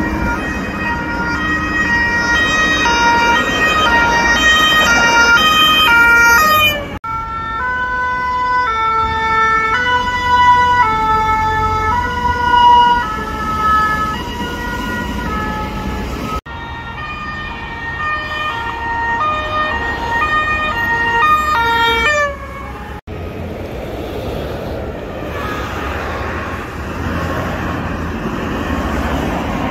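French two-tone emergency vehicle sirens, each switching back and forth between two notes, heard over road traffic. The siren sound stops abruptly and starts again twice. For the last several seconds only traffic noise remains.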